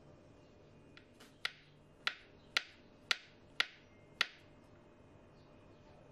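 Kitchen knife slicing a peeled banana on a wooden cutting board: the blade taps the board with each cut, about six sharp taps roughly half a second apart, stopping a little after four seconds in.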